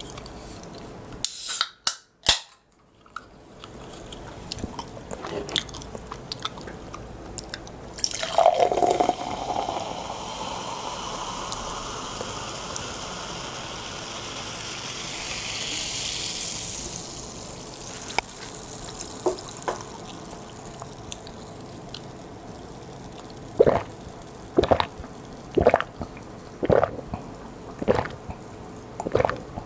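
A carbonated soda can cracked open with a couple of sharp clicks, then the fizzy soda poured into a glass mug, hissing for several seconds. Near the end come gulps about once a second as it is drunk.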